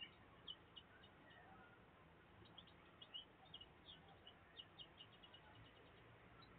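Faint chirping of small birds: many short, high chirps, some in quick runs, over an otherwise near-silent background.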